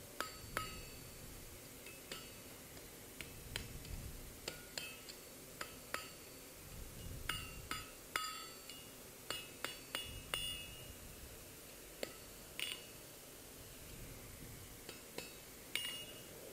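Faint, light hammer taps on a hot 8 mm round mild steel bar on the anvil, shaping its spiral end. The taps come at an irregular pace, each a short sharp clink with a brief high ring.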